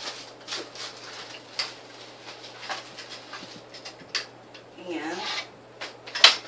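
Plastic packaging rustling and crinkling as kinetic sculpture parts are unwrapped and handled, with small clicks of handling throughout. A sharp knock near the end is the loudest sound.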